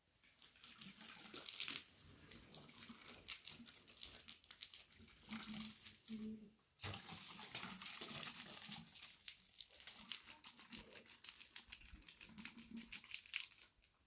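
Water poured from a plastic jug splashing onto dry dirt ground, a crackly spatter that goes on in sweeps with a short break about seven seconds in.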